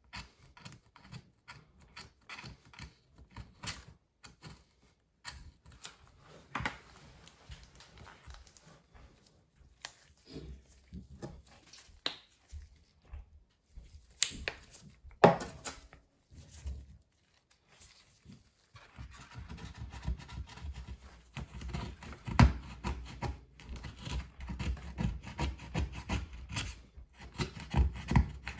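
Scraping and rubbing on the inside of a MacBook Pro's case as old battery adhesive is cleaned off the surface: irregular scratches and small taps, with one sharp tap about halfway, then denser, steadier scrubbing from about two-thirds in.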